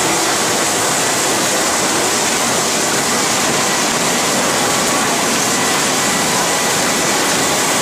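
Steady, loud din of factory packaging-line machinery and conveyors: an unbroken rushing noise with no distinct knocks or pauses.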